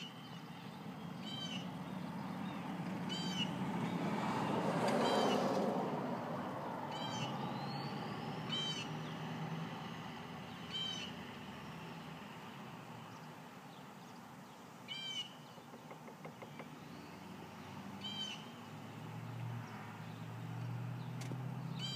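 An animal's short, high-pitched call repeated every few seconds, about nine times. A swell of rushing noise builds and fades around five seconds in.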